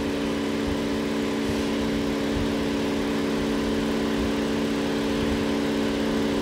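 Toyota Avalon engine idling steadily with an even, unchanging hum. The engine has a misfire, which the mechanic traces to a clogged number-2 injector that fires electrically but sprays no fuel.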